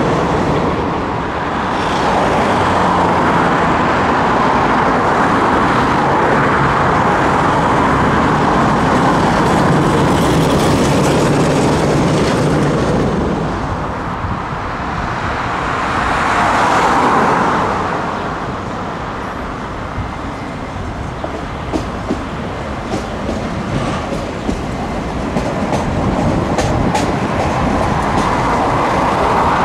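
Trams running along street track, their wheels rumbling on the rails. The sound swells twice and dips in between, and a run of short clicks comes in the last third.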